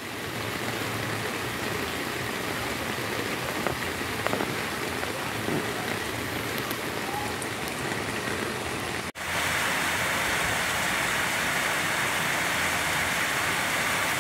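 Heavy rain pouring steadily onto floodwater. A brief dropout about nine seconds in, after which the rain is louder.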